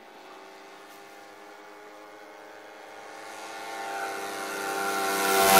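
Propeller plane's engine drone growing steadily louder as it approaches, peaking in a close pass at the very end.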